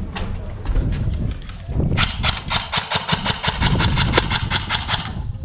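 Airsoft electric rifle (AEG) firing a full-auto burst: a rapid, even string of shots at about ten a second for roughly three seconds, starting about two seconds in, after a couple of seconds of shuffling movement.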